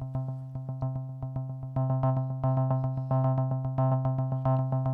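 Buchla Music Easel synthesizer holding one steady low note, gated into a rapid, even pulsing motor rhythm. Sequencer voltages mixed into the control voltage add accents: the pulses step louder about every second and a half.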